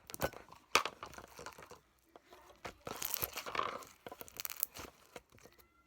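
Pink foam slime being squished and stretched by hand, giving crackly, crunching pops with a denser crackling stretch about halfway through.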